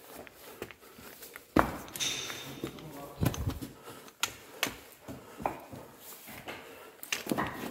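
Irregular knocks, scuffs and scrapes of a person clambering over rock in a tight mine tunnel, boots and gear striking the stone.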